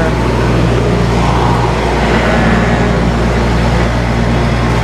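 Loud, steady mechanical hum with a rushing noise over it, running without change.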